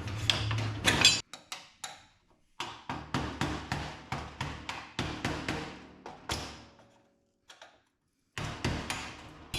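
Hand tools clattering and knocking as they are moved around on a cluttered workbench, a quick string of sharp knocks with a short pause before the last few. A low hum stops about a second in.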